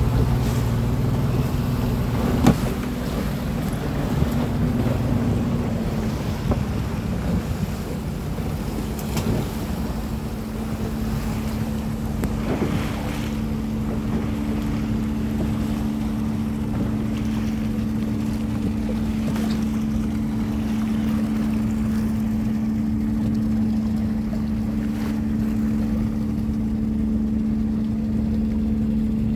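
Pilot speedboat's engine running with wind and water noise, idling low at first, then picking up about twelve seconds in and holding a steady drone as the boat moves off. A single knock a couple of seconds in.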